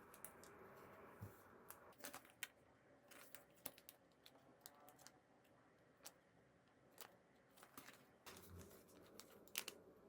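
Near silence broken by faint, scattered clicks and light rustles of photocards and plastic card sleeves being handled and sorted.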